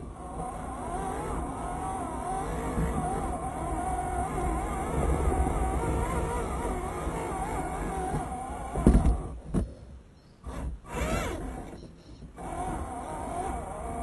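A 1:10 scale RC off-road car's motor and drivetrain running, recorded onboard, with a whine that wavers in pitch as the throttle changes. About nine seconds in come a few heavy knocks as the model bumps over the terrain. The motor sound then drops out in patches for a few seconds before the whine picks up again.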